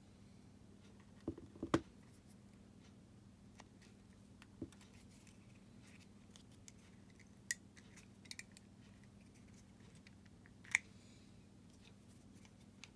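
Scattered small plastic clicks and taps as a Fiat 500 flip key fob's inner module and metal key blade are handled and worked out of the case, with a cluster of clicks about a second and a half in and another sharp click near the end. A faint steady hum sits underneath.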